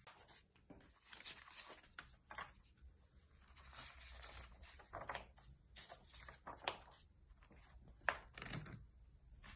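A Rubik's cube being turned by hand: an irregular run of quick plastic scraping and clicking turns, with one sharper click near the end.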